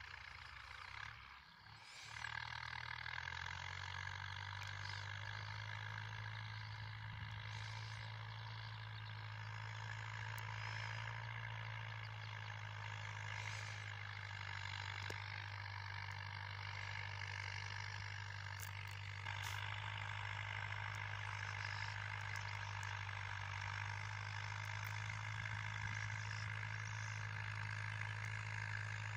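Steyr 8073 tractor's diesel engine running steadily under load while pulling a plough, a low even hum that settles in about two seconds in.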